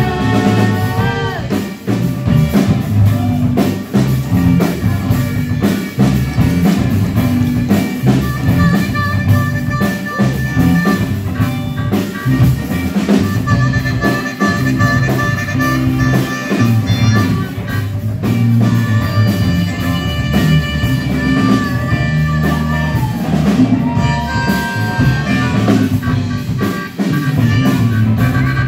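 Live rock band playing: a harmonica solo with held and bending notes over electric guitar, bass and drum kit.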